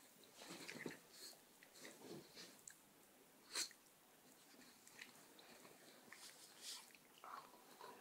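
A border collie and a Czechoslovakian wolfdog play-fighting on a bed: faint scuffling and mouthing sounds on the bedding, with one sharp click about three and a half seconds in.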